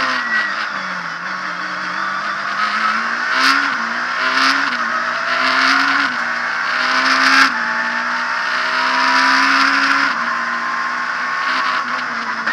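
Abarth Punto S2000's naturally aspirated 2.0-litre four-cylinder rally engine heard from inside the cabin at full stage pace. The revs fall as the car slows, then climb through a run of quick upshifts, four of them about a second apart, the pitch dropping with a sharp crack at each change, before holding steady and dropping again near the end.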